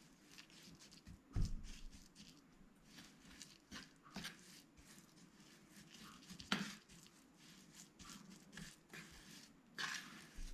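Quiet kitchen prep sounds: four sharp knocks of utensils on hard kitchenware spread through the stretch, with light scraping and rustling between.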